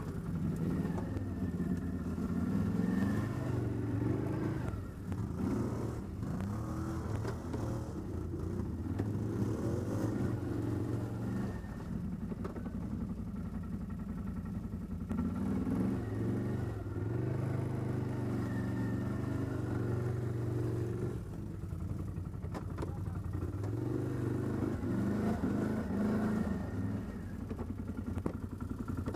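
ATV engine running under way, its pitch rising and falling as the throttle is worked over rough trail.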